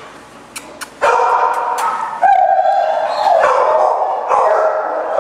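Dogs barking and yelping in shelter kennels, loud and continuous from about a second in, after a couple of sharp clicks.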